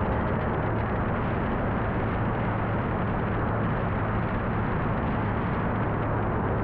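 Rotax-powered light aircraft in cruise flight: the engine and propeller make a steady low hum under an even rush of air.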